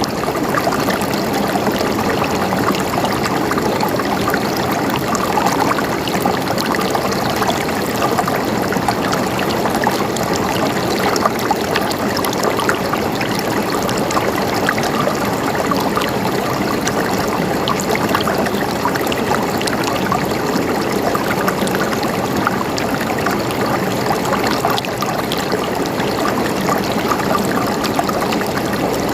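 Running water gurgling steadily, an even rush speckled with many small splashes and bubbling sounds.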